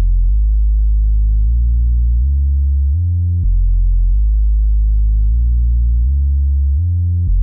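Background music: a deep bass line on its own, without drums, its notes changing every second or so.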